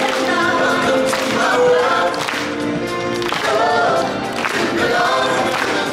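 Group of singers singing together like a choir over backing music.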